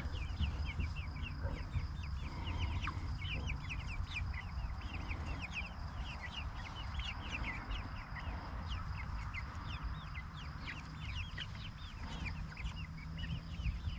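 Young chickens peeping and clucking in their coop: a steady stream of many short, high, falling chirps.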